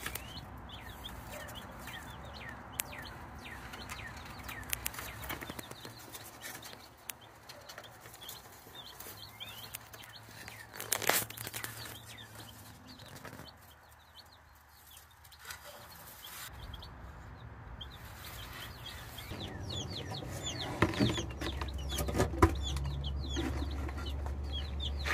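Chickens calling, a scatter of short high calls that come thickest near the start and over the last few seconds, with one sharp knock about eleven seconds in.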